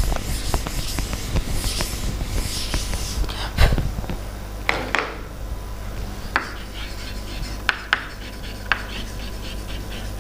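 Chalkboard eraser rubbing across a blackboard for the first few seconds, with a knock about three and a half seconds in. Then chalk writing on the board, with sharp taps about once a second.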